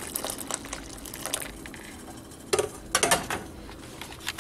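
Lentil stew with tomato and chile simmering and crackling in a frying pan, with a few louder knocks of a wooden spoon against the pan about two and a half and three seconds in.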